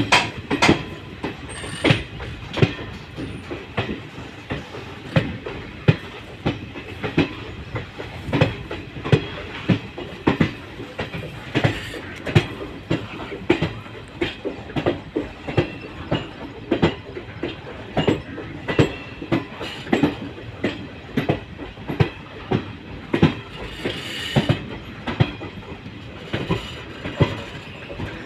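Passenger train coach wheels clicking over rail joints at speed, heard from the open doorway, a quick uneven clickety-clack over a steady rumble. A faint high wheel squeal comes and goes as the train leans through a long curve.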